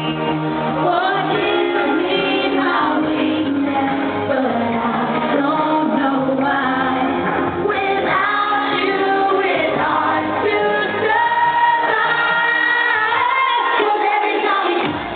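A female lead vocal sings live over a loud dance-pop backing track. The bass drops out briefly near the end.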